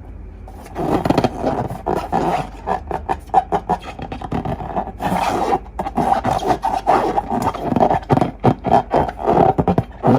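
Slime being squished and stretched by hand close to the microphone, a dense run of sticky clicks, crackles and pops that starts under a second in.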